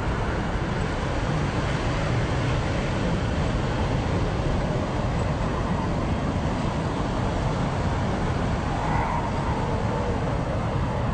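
Steady beach ambience: an even rumbling noise of ocean surf and wind across the microphone, unchanging throughout.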